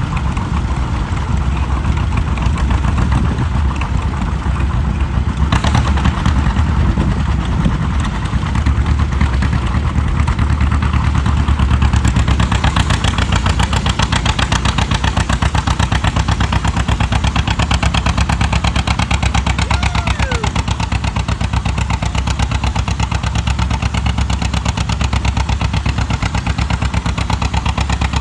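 Pulling tractor's engine running loud with a rapid, even exhaust beat, growing harsher and a little louder about twelve seconds in.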